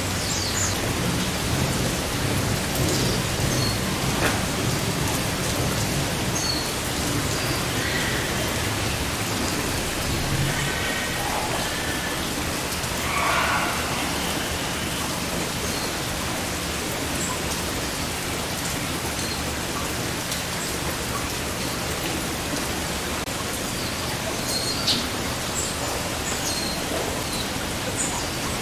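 Heavy rain falling steadily, an even hiss of rain on surfaces, with a few faint short chirps partway through.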